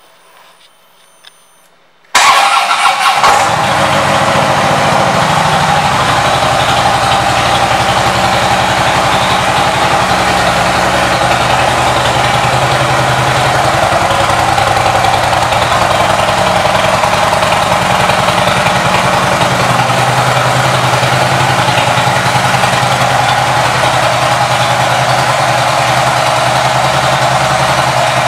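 Harley-Davidson Switchback's air-cooled Twin Cam V-twin with a Vance & Hines exhaust starting about two seconds in and settling into a steady idle.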